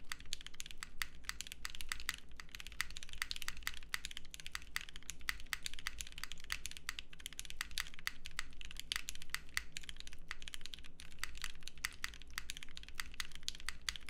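Fast, continuous typing on a Vertex Angle mechanical keyboard with lubed Gateron CJ linear switches, GMK Voyage keycaps and an aluminum plate over a silicone dampening pad: a dense stream of keystroke clacks, muted by the silicone.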